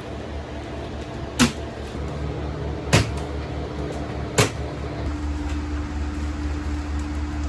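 Three sharp knocks about a second and a half apart, over a steady low hum; a steady tone joins the hum about five seconds in.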